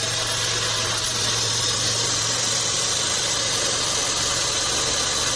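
Home-built bandsaw sawmill running steadily, a constant low machine hum with a high hiss over it.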